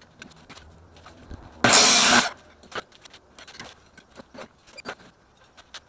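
Ryobi chop saw blade cutting briefly into a metal tube: a short burst about two seconds in, lasting about half a second and cutting off sharply. Light clicks and knocks of the tube and the saw's clamp being handled follow.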